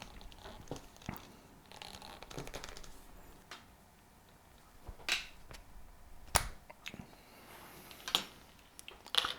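Scattered clicks and scrapes of a SharkBite push-fit fitting being handled: the disconnect tool is pressed in to release the grab ring and the tube is worked out. One sharper click about six seconds in.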